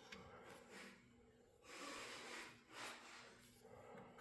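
Near silence: faint room tone with a couple of soft, brief noises about halfway through.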